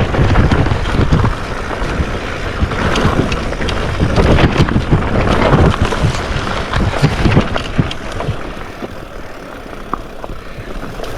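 Wind buffeting the microphone over a low rumble, with scattered knocks and rattles, as from riding a rough trail; it eases off about eight seconds in.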